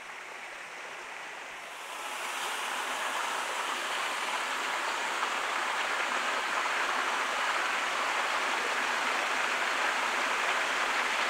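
Small waterfall splashing down a rock ledge in thin cascades, a steady rush of water that gets louder about two seconds in and then holds.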